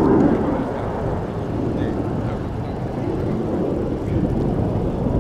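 BAE Hawk jet trainers' turbofan engines, a low steady roar that swells near the start and again later on as the jets fly by.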